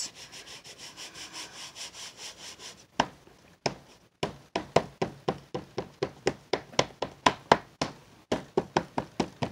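Plastic-cased archival ink pad worked by hand over a carved rubber texture plate: first rubbed quickly back and forth in soft rapid strokes, then, about three seconds in, dabbed against it in sharp taps about four a second.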